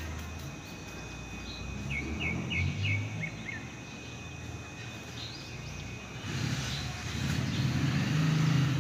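Outdoor ambience: a bird chirps a quick run of about six short notes about two seconds in, over a low rumble like passing traffic that grows louder in the last few seconds.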